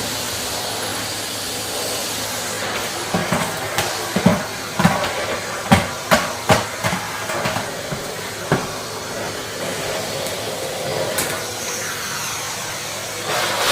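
Vacuum cleaner running steadily, with a string of sharp knocks and clacks from about three to nine seconds in. It turns louder and hissier near the end.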